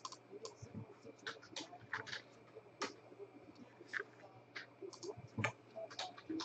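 Scattered, irregular keystroke clicks on a computer keyboard.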